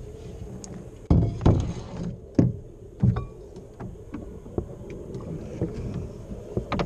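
Hollow knocks and thumps on a canoe hull as the paddle and gear are handled in the boat: a cluster of heavy knocks in the first three seconds, then a few lighter ones.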